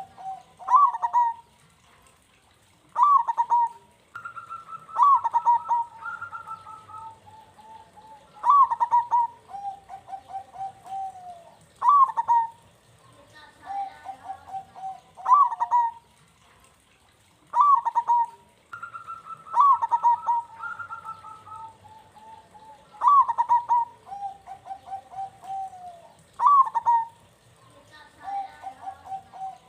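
Zebra dove (perkutut) singing its cooing song over and over, a phrase about every three seconds. Each phrase opens with a sharp, loud note and runs on into a string of softer, rolling coos.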